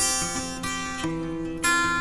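Background music: acoustic guitar picking and strumming chords.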